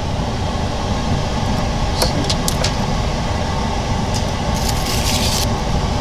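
OCA vacuum laminating machine running with a steady low hum after being switched on. A few metal clinks from the aluminium mould being handled about two seconds in, and a short hiss of air near the end.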